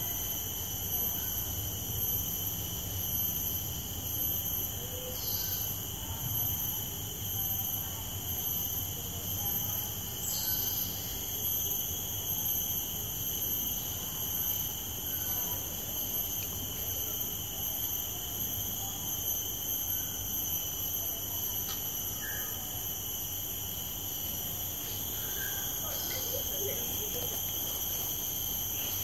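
Steady insect chorus of crickets or cicadas: several high, continuous tones held without a break, with a few brief faint calls now and then.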